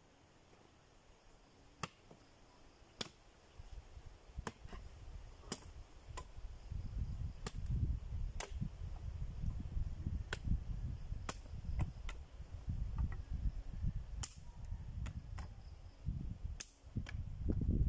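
Bolo knife chopping and trimming a thin wooden stick: sharp snapping chops, irregular, about one a second. A low fluctuating rumble grows from about four seconds in and becomes louder than the chops.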